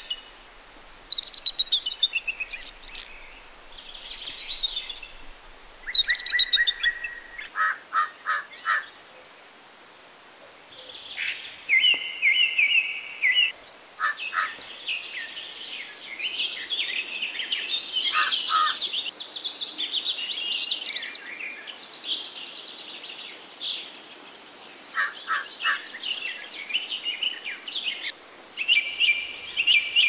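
Several small birds chirping and singing, with many overlapping high whistled calls and trills and a few short runs of quick lower notes, busiest in the second half.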